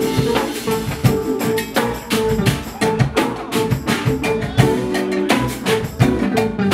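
Live jazz-fusion band playing, electric bass and drum kit to the fore, with sharp drum hits several times a second over a steady groove.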